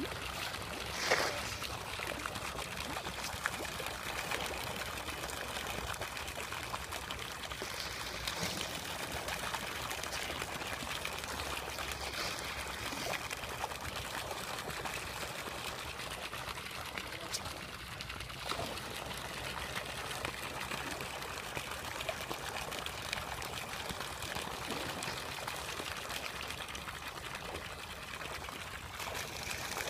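Water pouring and trickling steadily into a fish pond, with a brief louder noise about a second in.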